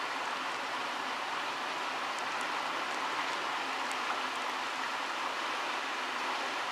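Steady rush of flowing river water, with a few faint high ticks partway through.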